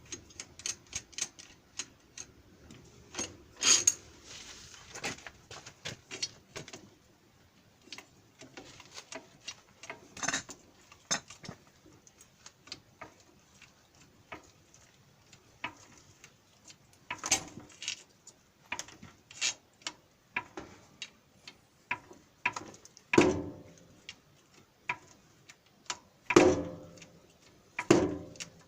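Hand tools working on a power tiller's metal wheel assembly: irregular small clicks and knocks of metal on metal. A few louder ringing clanks come near the end.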